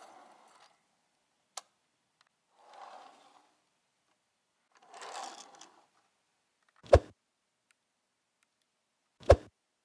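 Small diecast toy vehicles rolled and slid across a plastic play-mat into place, in three short scraping runs with a small click between the first two. Two sharp thumps follow, about two seconds apart near the end, much louder than the scraping.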